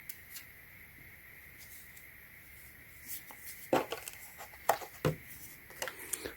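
Handling noise: several short, sharp clicks and knocks, clustered in the second half, as a small charging unit and its parts are picked up and handled. A faint, steady, high-pitched tone sits underneath.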